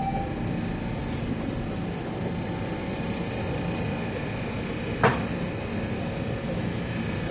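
Steady hum of a TTC Line 1 subway car standing at a station with its doors open, its onboard equipment giving a low drone with a few held tones. A single sharp knock sounds about five seconds in.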